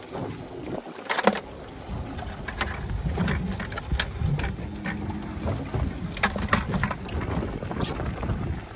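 Wind rumbling on the microphone, with scattered sharp clicks and knocks.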